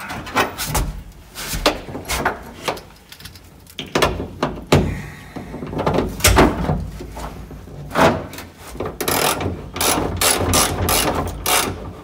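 Ratchet wrench clicking in short strokes as a seat-belt anchor bolt is run into the car's door pillar, the clicks coming in quicker runs near the end.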